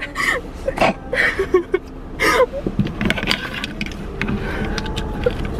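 A girl crying: short, breathy sobbing gasps and sniffs, followed about three seconds in by a few light clicks and the rustle of clothing as she handles something.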